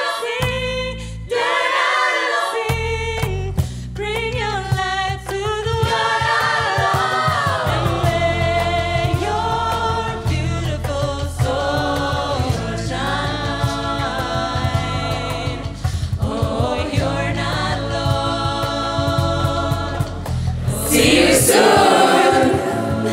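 A circle-singing vocal group sings in layered harmony over a steady low bass part, with light percussive clicks keeping time. A loud, noisy swell comes near the end.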